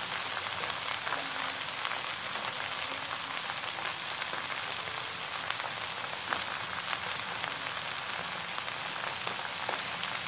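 Tofu sisig sizzling steadily in hot oil in a frying pan, with a few faint crackles now and then.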